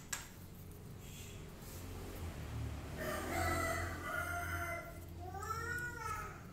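A rooster crowing: one long call of about three seconds starting about three seconds in, ending with a rise and fall in pitch. A faint low hum runs underneath.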